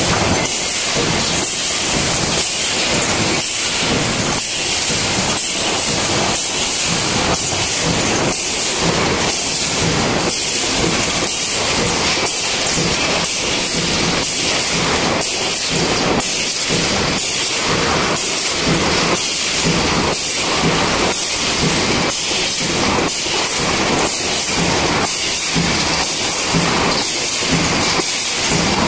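Tinplate coil cut-to-length line running: the uncoiler, straightening rollers and sheet cutter make loud continuous machine noise with a regular rhythm, somewhat more than one beat a second.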